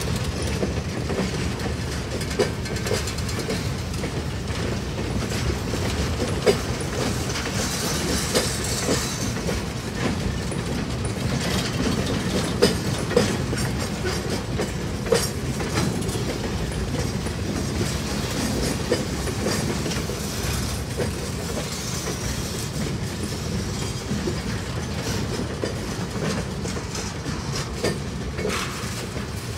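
Freight train of boxcars and tank cars rolling past with a steady rumble, its wheels clicking and clanking irregularly over the rail joints and the crossing.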